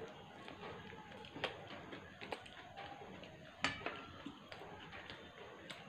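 Pizza being chewed close by, with scattered sharp clicks of lips and mouth, the loudest about three and a half seconds in.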